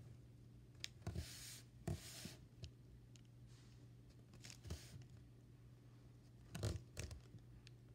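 Faint scratching and rustling of a black felt-tip marker drawing stripes on soft yellow clay, with a few light taps and a louder soft knock near the end, over a low steady hum.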